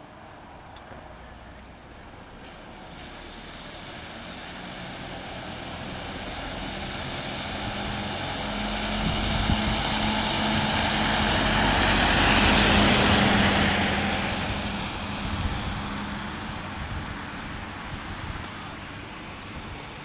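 A passing vehicle: a steady engine hum and rushing noise that swells slowly over about ten seconds, peaks just past the middle, then fades away.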